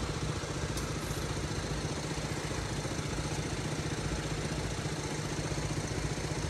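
Motorcycle engines idling steadily, a low hum with a fast, even throb.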